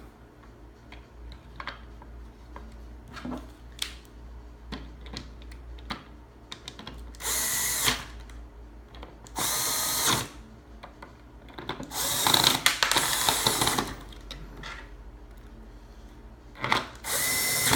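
Cordless drill-driver running in several short bursts, driving in the screws that hold a coin lock body, with light clicks and knocks of handling between bursts.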